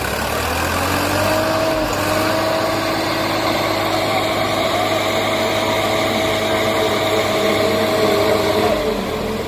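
Two diesel tractor engines, a Swaraj 960 and a John Deere 5050D, running hard against each other in a tug-of-war pull. The pitch climbs about a second in, holds steady at high revs under load, and drops near the end.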